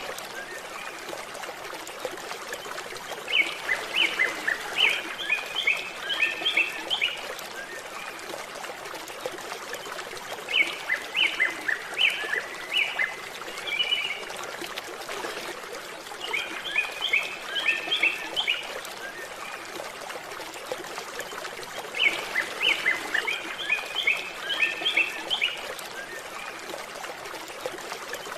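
A songbird singing repeated phrases of rapid high chirping notes, each phrase two to three seconds long and coming back about every six seconds, over a steady sound of running water.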